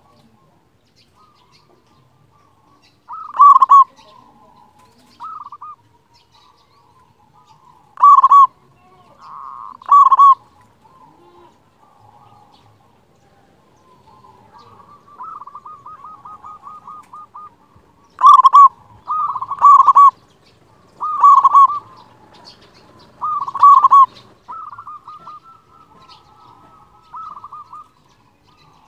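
Local-strain zebra dove (perkutut) singing: loud, short, clipped coos repeated every second to few seconds, with softer rapid trilled cooing in between.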